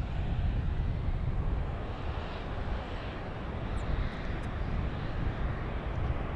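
Jet engines of a Boeing 747 on the runway: a steady, low rumble with a hiss on top that swells slightly about four seconds in.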